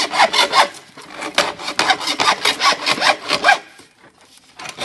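Hacksaw cutting through a grey PVC pipe in quick back-and-forth strokes, about four a second, that stop about three and a half seconds in.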